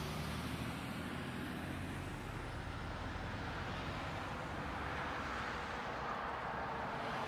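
A vehicle engine idling steadily under a constant hiss of background noise.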